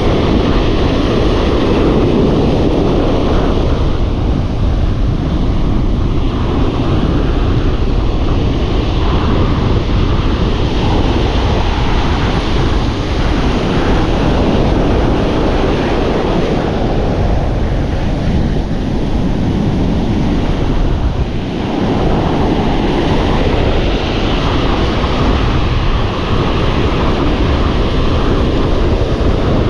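Ocean surf breaking and washing up the shore, a steady rushing noise, with wind buffeting the microphone.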